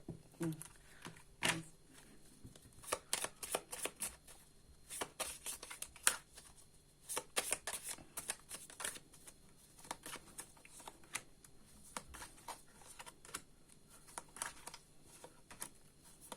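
Tarot cards being handled on a table: an irregular run of short snaps and slaps as the deck is shuffled and cards are laid out.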